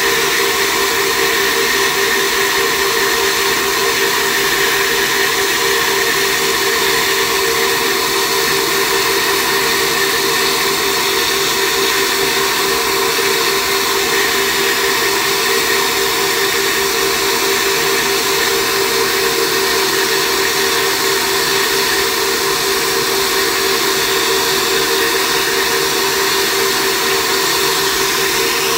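Flow bench running steadily, its motors pulling about 338 cfm of air through a ported LS1 cylinder head's intake port. A loud, even rush of air with a constant hum.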